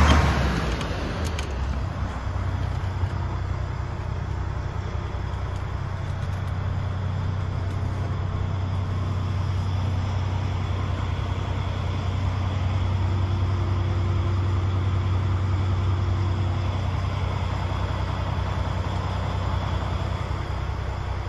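DAF XF105's Paccar MX 460 hp diesel engine idling steadily, a low even hum heard from inside the cab.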